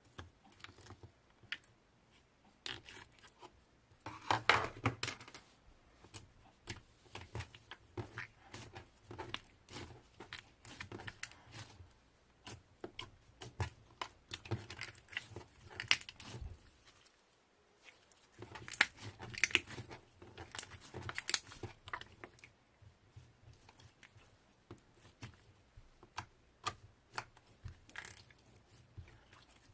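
Slime being squeezed, stretched and pressed by hand: irregular sticky pops, clicks and crackles, denser and louder in two spells about four seconds in and near twenty seconds, with a brief lull between.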